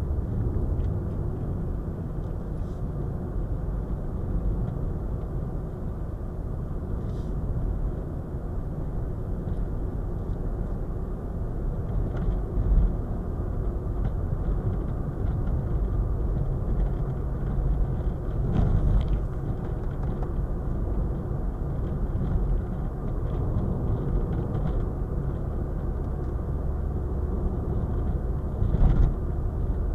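Car driving, heard from inside the cabin: a steady low rumble of tyres and engine, with a few thumps from bumps in the road surface.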